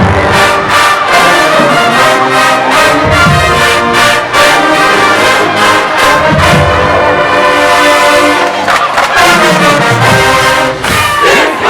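HBCU show-style marching band playing loudly: the full brass section, with trombones and trumpets, holds sustained chords over a steady drum beat.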